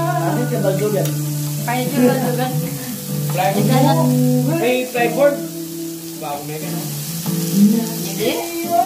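Pork belly rolls wrapped around enoki mushrooms sizzling on a hot grill pan, a steady frying hiss. Background music with held low notes and a moving melody plays over it.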